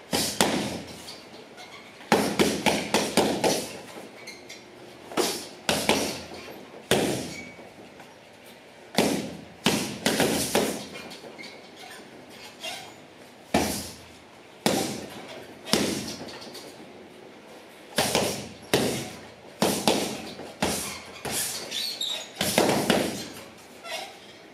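Strikes landing on a hanging heavy bag: sharp thuds, some single and some in quick flurries of several blows, with short pauses between, each followed by a brief echo off the bare walls.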